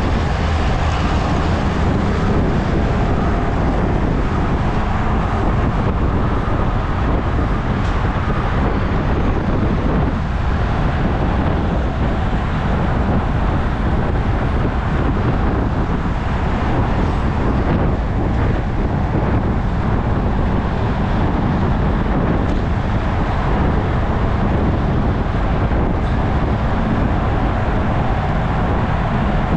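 Steady rush of wind over the microphone of a handlebar-mounted camera on a road bike riding fast, mixed with the noise of car traffic passing in the adjacent lanes.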